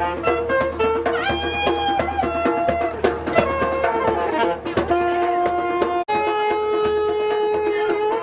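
Saxophone playing a melody of held notes over quick djembe hand-drumming. The sound cuts out for an instant about six seconds in.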